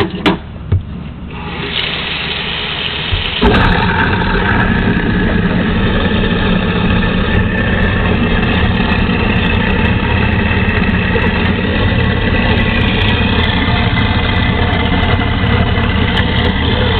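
Kitchen garbage disposal switched on and running steadily, grinding broccoli. It comes on loudly about three seconds in, after a lower rushing noise.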